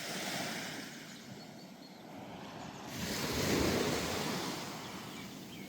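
Ocean surf washing onto a beach, a wave swelling to its loudest about halfway through and then easing, with some wind.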